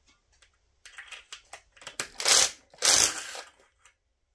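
Cordless drill spinning a socket on a bolt of a Vanguard V-twin cylinder head. A few light clicks come first, then two short bursts of rattling and chattering about two and three seconds in, as the socket is not set fully down on the bolt.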